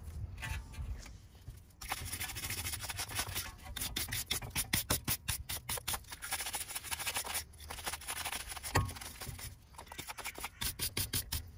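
A stiff hand brush scrubbing rust and dirt off a rear brake caliper in quick back-and-forth strokes. The scrubbing starts about two seconds in and pauses briefly a couple of times.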